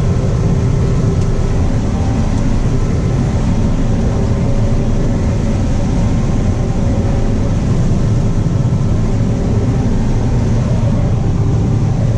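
Combine harvester running steadily while harvesting corn, heard from inside the cab: an even low drone of engine and threshing machinery with faint steady whining tones above it.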